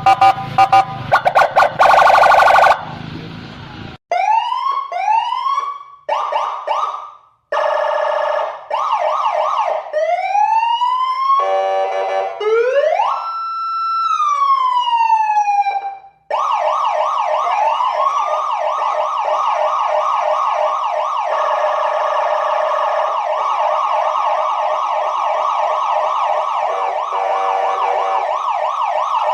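Indonesian police escort (patwal) siren cycling through its tones. A rapid pulsing tone comes first, then a series of short rising whoops and a slow wail that rises, holds and falls. From about halfway it settles into a fast, steady warbling yelp.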